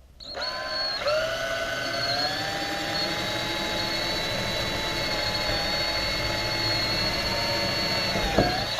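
Electric drill running steadily while boring a screw hole, speeding up about a second in, holding a steady whine, then slowing and stopping near the end.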